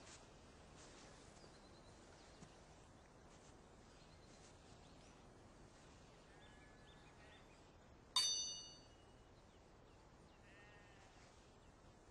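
A single sharp metallic clash of steel sword blades, ringing high and dying away in under a second, about eight seconds in. Around it the background is near silent, with faint animal calls twice.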